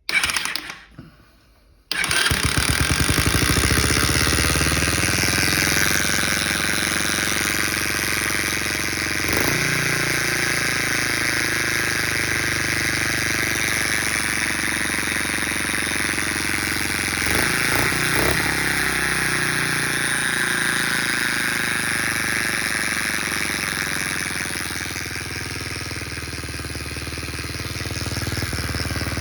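Small single-cylinder four-stroke engine of a Chinese XR50-copy 50cc dirt bike starting about two seconds in after a brief burst, then running steadily with the annoying buzz from the engine. The owner suspects a bent kickstarter pawl ramp letting the pawl rub on its gear.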